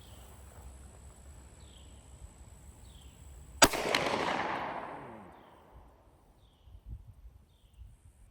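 A single Glock pistol shot about a third of the way in, with its echo trailing off over about a second and a half.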